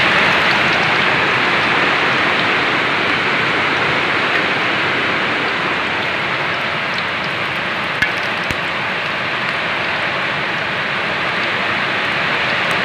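Moonfish frying in hot oil in a pan, a steady sizzle. Two sharp clicks about eight seconds in, from the metal spatula against the pan.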